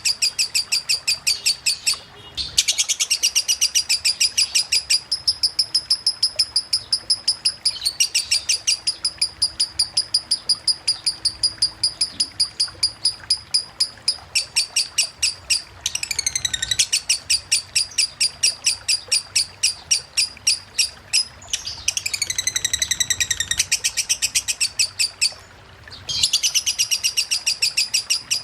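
Lovebird konslet singing a long ngetik song: a rapid, shrill run of high chirps, about four to five a second, kept up almost without a break. It pauses only briefly a few times and drops in downward-sweeping phrases about halfway through and again near the end.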